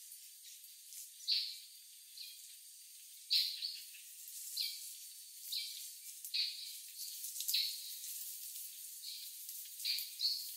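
Forest ambience: short, high chirping calls repeat unevenly about once a second over a faint, steady high hiss.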